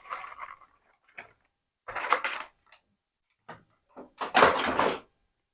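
Handling noise from plastic packaging: two short bursts of rustling and clatter, the second a little longer, with a few light clicks between, as the mini toy RC helicopter is taken out of its box.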